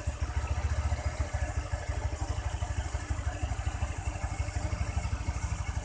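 Honda Vario 125 scooter's single-cylinder fuel-injected engine idling steadily with even firing pulses. Its air-filter box is open and the intake is being cleaned with carburettor-cleaner spray.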